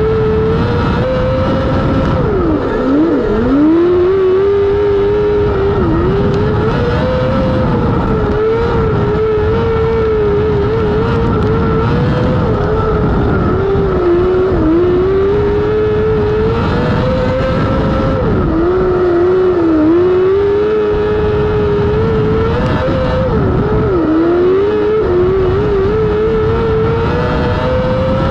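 Non-wing micro sprint's 600cc motorcycle engine running at high revs, its pitch holding high down the straights and dipping briefly several times as the throttle comes off for the turns, then climbing again.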